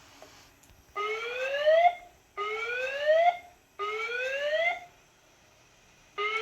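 Hotel voice-evacuation fire alarm sounding its evacuation tone: three rising whoops in a row, each about a second long, a short pause, then the pattern starting again near the end. It is the signal to evacuate the building and alternates with the recorded message to leave by the fire exit stairway.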